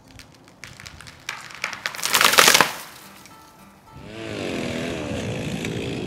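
A felled pine tree coming down: its hinge wood cracking and splintering in snaps that come faster and faster, then a loud crash as the trunk and branches hit the ground about two seconds in.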